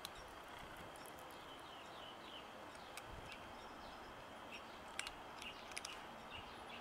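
Faint outdoor background with scattered small bird chirps. A few sharp little clicks come about five seconds in.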